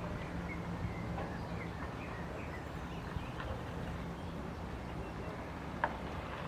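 Outdoor ambience: a low steady hum with faint short bird chirps in the first half, and a single sharp click near the end.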